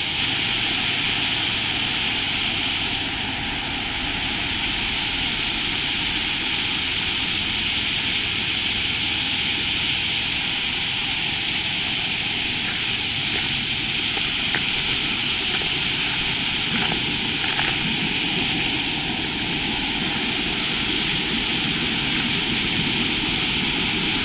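Steady rush of river water flowing over a shallow gravel riffle, the river running higher than normal.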